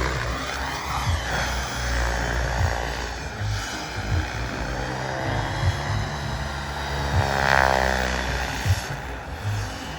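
Turbine-powered RC helicopter flying: the whine of the TS45i turbine and the rotor noise rise and fall in pitch as it passes, loudest in a close pass near the end.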